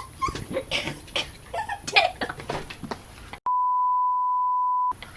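A steady, single-pitched censor bleep of about a second and a half, starting a little past halfway, with all other sound cut out while it lasts. Before it come short, scattered noises.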